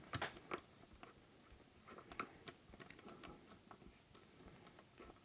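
Faint, scattered light clicks and taps of a small hand tool working on a wheel of an RC model car, loosening the wheel to take it off.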